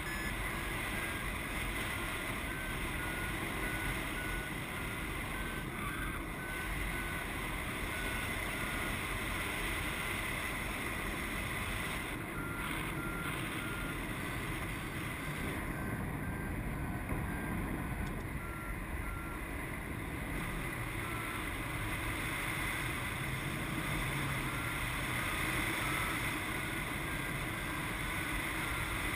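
Steady wind noise rushing over the microphone of a paraglider in flight, with a variometer's faint short beeps repeating and shifting in pitch as the rate of climb changes.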